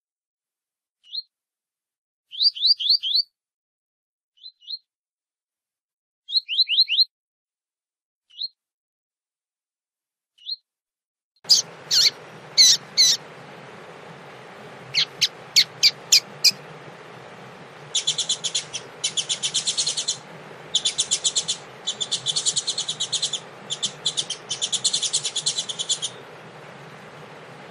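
Double-collared seedeater (coleiro) warming up in the tui-tui song style. At first there are isolated short, high chirps. From about halfway, over a steady background hiss, come sharp repeated notes and then long rapid trills.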